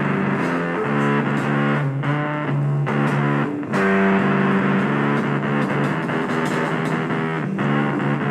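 Music played on distorted electric guitar: sustained chords, with short breaks between phrases.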